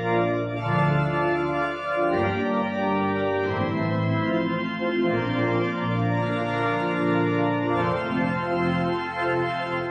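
Church pipe organ playing slow, sustained chords that change every second or so. The sound cuts off abruptly at the end.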